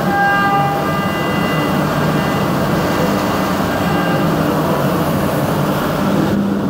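CNC machining centre high-speed roughing aluminium with a 16 mm four-flute carbide end mill at 12,000 rpm under flood coolant. A steady spindle hum runs under a high singing cutting tone that swells and fades as the tool moves in and out of the cut, all over the hiss of coolant spray and flying chips.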